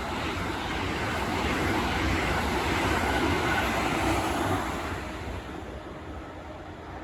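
Freight train running past on the line: a steady rumble that swells for the first few seconds and then eases off.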